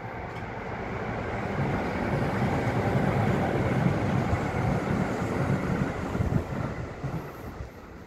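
Keihan electric commuter train passing on the elevated track, a rumble of wheels on rails that swells to a peak in the middle and fades away near the end.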